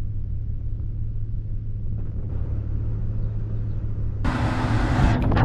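Steady low hum of the van's engine idling. About four seconds in, a louder rushing hiss comes in over it.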